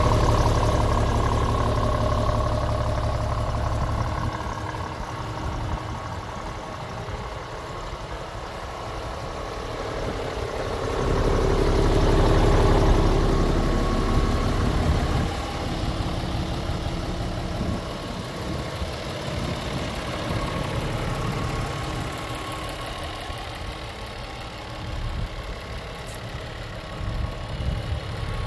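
Scania G450 tractor unit's 13-litre straight-six diesel idling steadily. It grows louder and quieter as the microphone moves around the truck, loudest about halfway through.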